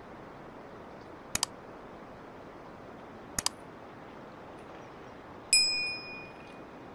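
Subscribe-button animation sound effects: a mouse-style double click about a second in, another about two seconds later, then a bright bell ding near the end that rings and fades. Under them is the steady rush of river water.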